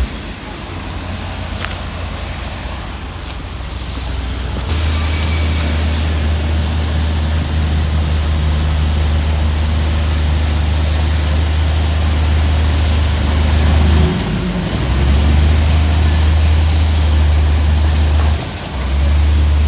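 Diesel engine of heavy earthmoving machinery running with a deep, steady rumble. The rumble jumps louder about five seconds in and drops away briefly twice near the end.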